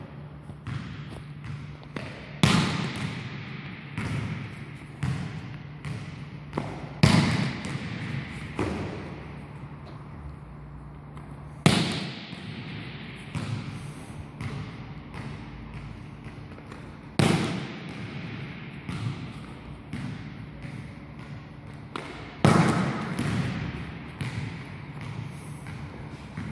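Volleyball spike machine hitting balls: five loud, sharp smacks about every five seconds, each followed by a run of quicker, smaller thuds as the ball bounces on a hall floor, with echo. A steady low hum runs underneath.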